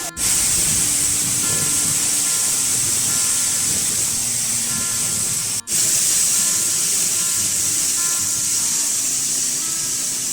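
Soft background music of held notes over a steady, loud, high hiss of rushing water from a waterfall or stream. The sound drops out for an instant twice, just after the start and about halfway.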